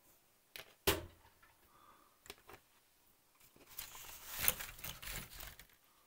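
A sharp click about a second in, then a few light ticks. Then comes about two seconds of paper rustling as a model-kit instruction sheet is handled and turned over.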